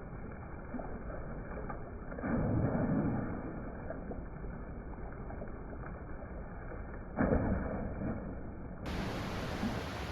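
Steady rushing of a river's flowing water, muffled for most of the stretch and opening out to a full, clear hiss near the end, with two low rumbling bumps, about two and about seven seconds in.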